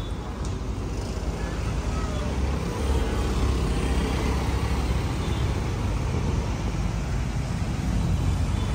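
Steady road traffic noise: a low rumble of cars and motor scooters going by.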